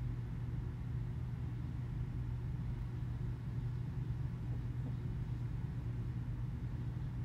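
A 2006 Nissan Titan's 5.6 L V8 engine idling steadily, a low even hum that does not change.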